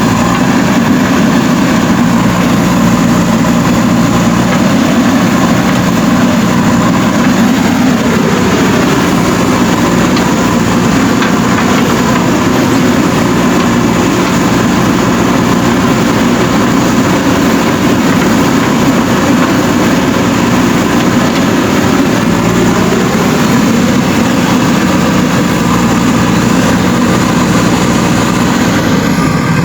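A JCB 3DX Super backhoe loader's diesel engine running steadily under work. A fainter whine drops in pitch about eight seconds in and rises again about twenty-two seconds in.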